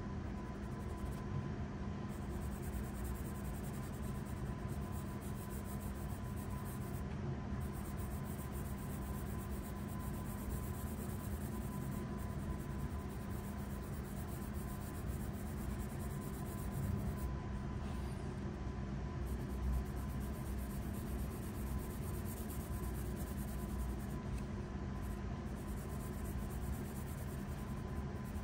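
Graphite pencil shading on paper: continuous scratching strokes, over a steady low hum.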